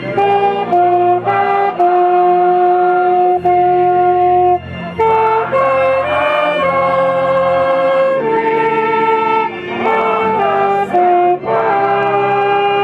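Music led by horns, playing a melody of long held notes with a second line moving alongside it, over a steady bass.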